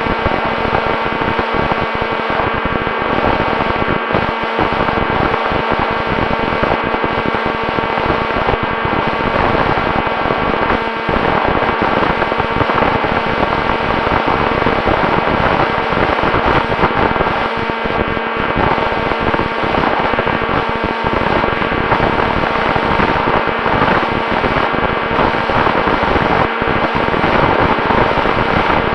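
FX-61 flying wing's electric motor and propeller running at a steady throttle, a constant whine with several steady tones, mixed with a rush of wind noise.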